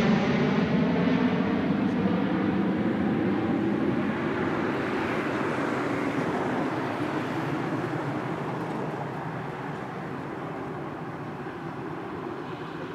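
Airliner climbing away after takeoff, its engine noise fading steadily as it recedes.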